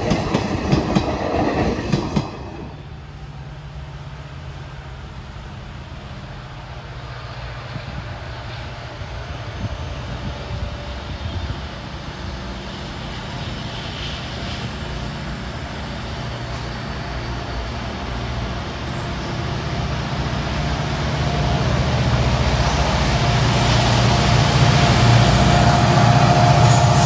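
The last coaches of a passenger train clattering past over the rail joints, cut off abruptly about two seconds in. Then a diesel locomotive's engine hums steadily as it approaches, growing louder toward the end.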